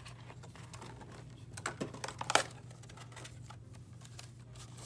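Paper calendar pages rustling with light clicks and taps as a desk calendar is handled and turned, with a sharp tick about halfway. A steady low hum runs underneath.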